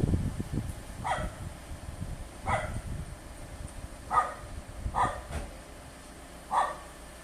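Dog barking repeatedly: five single barks spaced about a second or so apart. A low rumble underneath fades out after about three seconds.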